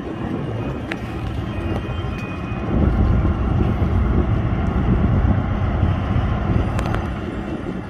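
Small boat's engine running steadily while the boat is underway, a low rumble that gets louder about three seconds in.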